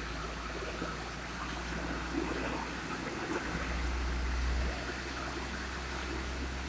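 Container truck's diesel engine running at low speed as the rig manoeuvres, a steady low rumble that swells for about a second near the middle.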